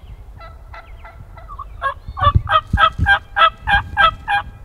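Wild turkey calling: a few faint notes, then from about two seconds in a loud series of about nine evenly spaced yelps, roughly four a second.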